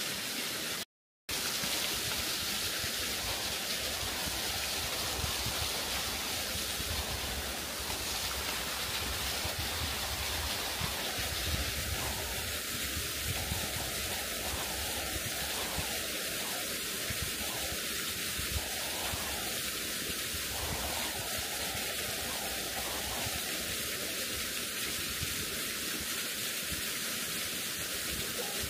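Waterfall running: a steady, even rush of falling water, briefly cut out about a second in.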